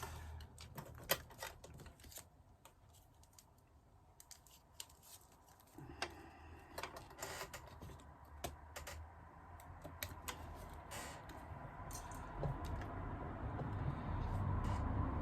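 Domestic sewing machine top-stitching: scattered mechanical clicks and taps at first, then the machine running steadily, growing louder over the last few seconds.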